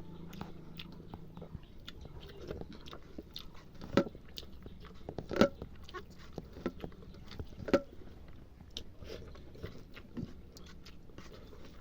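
A person eating mutton curry, chewing and biting, with many small irregular clicks and three louder sharp clicks about four, five and a half, and eight seconds in.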